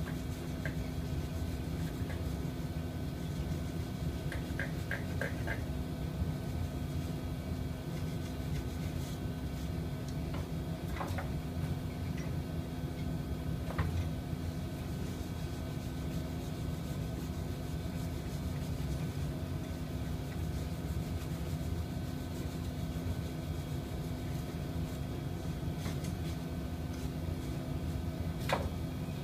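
Steady hum of running workshop machinery, with a few light metallic clicks and taps: a quick run of four about four seconds in, then single ones now and then.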